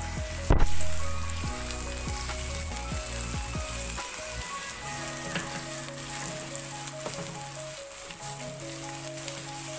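Sliced onions frying in hot oil in a kadhai, sizzling steadily while they are stirred with a wooden spoon as they cook toward light brown. A sharp knock stands out about half a second in.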